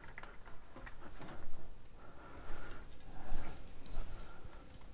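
Scattered light clicks and small knocks, irregular and unrhythmic: hands handling equipment, with no motor running yet.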